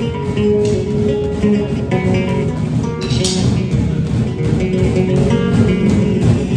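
Upbeat recorded music led by guitar, with a steady beat.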